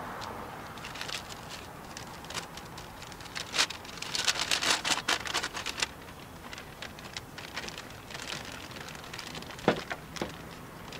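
A brown paper bag and a plastic bag crinkling and rustling as they are handled, in spells of crackle that are busiest about four to six seconds in. There is one sharper knock near the end.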